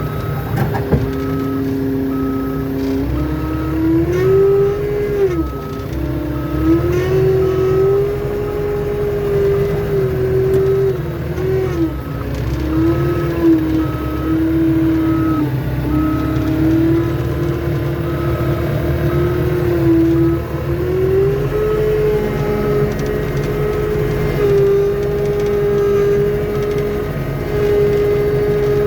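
Skid steer engine working under load as it backs up pulling a pickup truck out of deep mud, its pitch rising and falling as the revs change. Its reversing alarm beeps steadily at an even pace.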